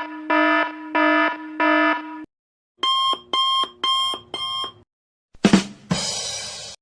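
A sequence of separate sound effects: electronic alarm-style beeping, about four steady beeps, then after a short gap five quicker, higher beeps; near the end a sharp hit followed by a burst of hiss lasting about a second.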